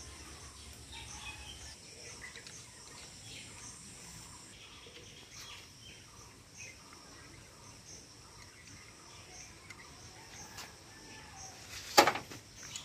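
Quiet outdoor background with faint bird chirps, while hand tools are worked on a power tiller's gearbox. About twelve seconds in, one sharp clank of a hand tool on the gearbox.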